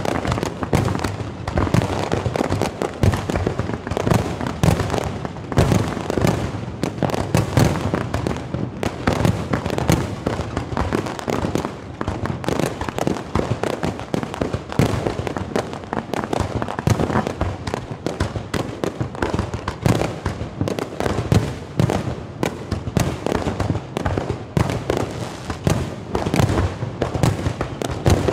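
Aerial firework shells bursting in rapid succession, a dense, unbroken volley of sharp bangs.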